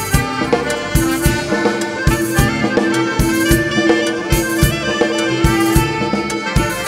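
Thai ramwong dance music played live by a band through a PA: a steady drum beat, about two strokes a second, under a long held melodic note in an instrumental passage between sung verses.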